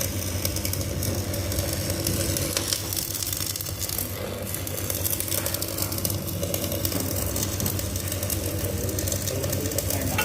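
Electric arc welding: a continuous irregular crackle from the arc over a steady low electrical hum.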